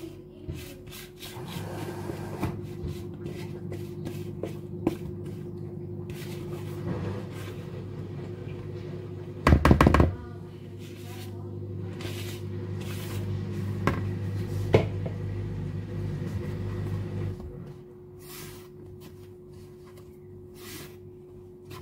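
Cookie batter being scraped with a silicone spatula out of one bowl into a large plastic mixing bowl of flour: soft scrapes and light knocks, with one loud knock about ten seconds in. A steady low hum runs underneath and stops a few seconds before the end, as hands start rubbing the batter into the flour.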